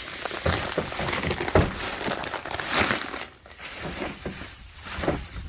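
Plastic grocery bags and packaging crinkling as groceries are handled, with a few sharp knocks of items being set down.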